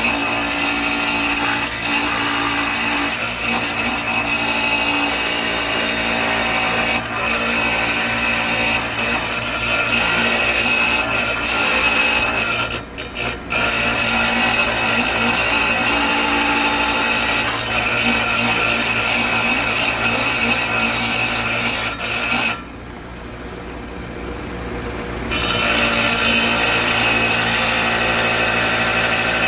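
Power tool grinding and cutting into agate, shaping the rough stones and taking off bad spots, running loud and steady. The grinding drops out briefly about halfway and again for a couple of seconds in the last third, then resumes.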